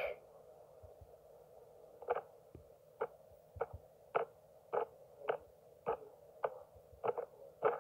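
Light ticks or taps repeating evenly, a little under two a second, starting about two seconds in, over a faint steady hiss.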